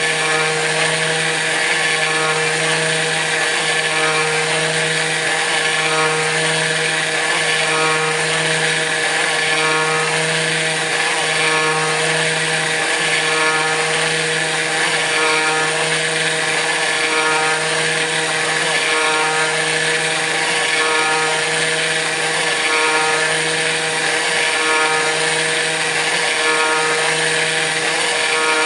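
Kress FME-1050 router spindle running steadily on a CNC machine milling aluminium. A low hum beneath it breaks off and resumes every second or two.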